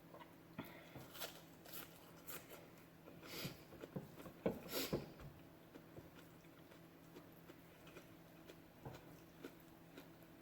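A person chewing and biting grilled chicken close to the microphone. There are scattered small mouth clicks, and a run of louder chewing bursts around the middle.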